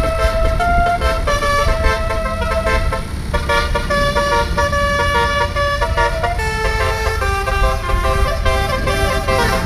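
A bus's telolet horn, a multi-tone musical air horn, playing a tune of held notes that step up and down in pitch, over a steady low rumble.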